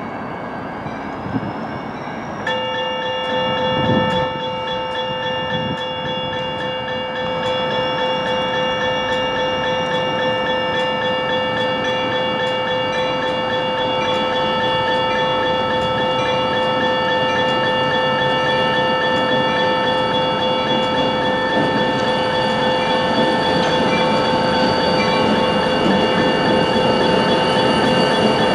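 Safetran Type 1 electronic crossing bell starts about two seconds in and rings steadily, signalling an approaching train. Under it the rumble of the Union Pacific GP40-2 diesel locomotive grows steadily louder as it nears the crossing.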